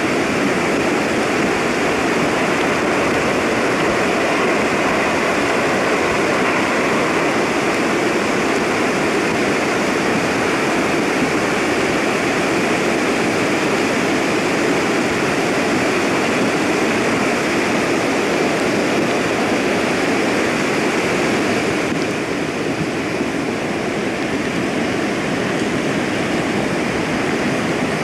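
Mudflow rushing down a rocky mountain slope: a steady, dense rush of water and debris, slightly quieter from about three-quarters of the way through.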